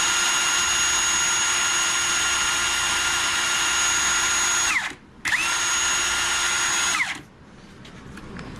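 Ridgid R86211 18V Octane brushless impact wrench spinning free with no load on its auto 3 setting, giving a steady, even-pitched motor whine. It cuts out about five seconds in, starts again moments later, and winds down about seven seconds in.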